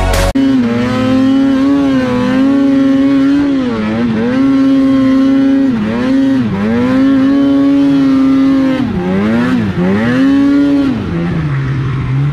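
Polaris Khaos mountain snowmobile's two-stroke engine running at high revs through deep snow, the pitch dipping briefly several times as the throttle is eased and reapplied, then dropping to a low idle near the end.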